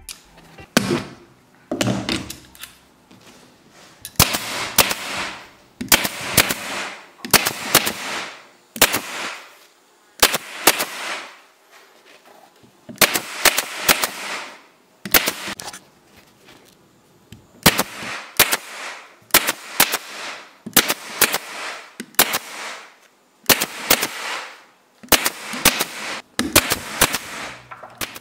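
Air-powered staple gun firing staples through a fabric upholstery strip into a chipboard panel edge, one sharp shot every second or so with a few short pauses, each shot followed by a brief hiss of air.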